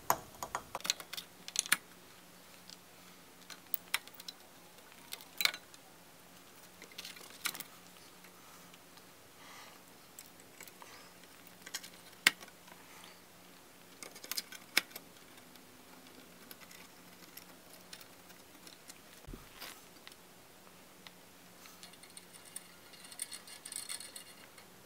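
Scattered light clicks and small rattles of parts and tools being handled on a workbench, in irregular clusters, over a faint steady hum.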